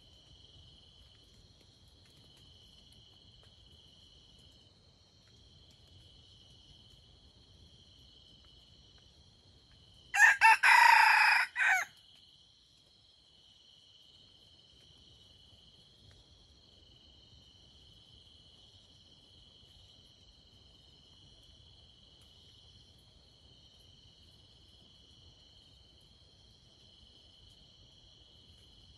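A wild junglefowl rooster crows once, a short crow lasting under two seconds about ten seconds in. A steady high-pitched insect drone runs underneath.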